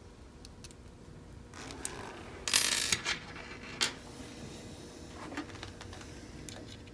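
Small metal parts being handled: light clicks and taps of a metal encoder bracket and encoder turned over in the hands, with a louder scraping rustle about two and a half seconds in and a sharp click about a second later.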